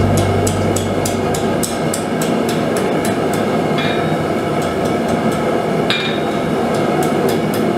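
Hand hammer striking red-hot flat steel on an anvil, forging a curled end into a scroll: quick light blows, about three to four a second. The blows stop for a few seconds in the middle, with two short ringing metallic notes, then start again near the end.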